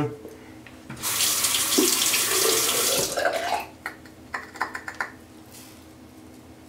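Bathroom sink tap running for about two seconds, then shut off. A few short clicks and knocks follow.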